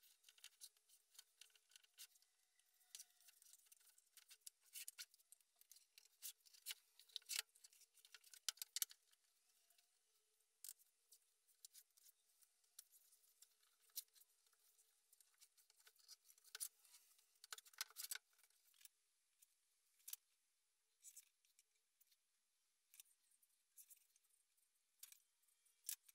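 Orange masking tape being pulled off the roll, torn and pressed onto plywood boxes: faint, irregular crackles and sharp ticks, thicker in the first two thirds and sparser near the end.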